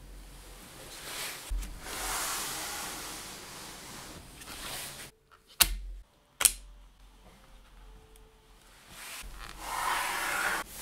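Gloved hands rustling as they handle a laptop RAM stick, then two sharp clicks less than a second apart as the DDR3L SO-DIMM module is pressed down and snaps into the slot's retaining latches. More handling rustle follows near the end.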